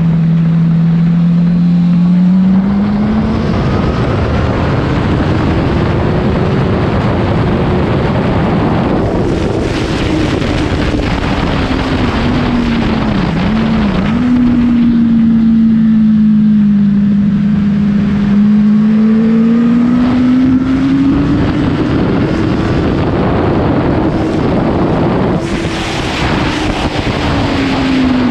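Honda CBR1000 inline-four engine under way, its pitch rising and falling as the throttle opens and eases off, with two brief dips in pitch about halfway through. Wind rushes over the microphone throughout.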